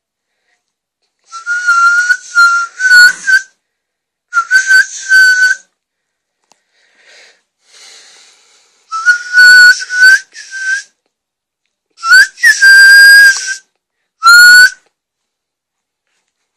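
Loud whistling close by: five short bursts of one steady high note, each a second or two long, most ending in a slight upward flick.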